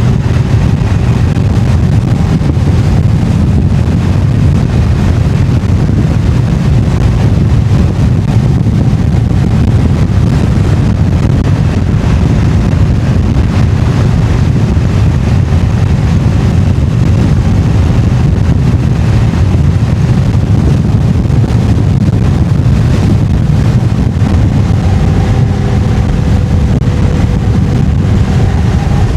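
Harley-Davidson Iron 883's stock-exhaust air-cooled V-twin running steadily at road speed, with wind rushing over the microphone.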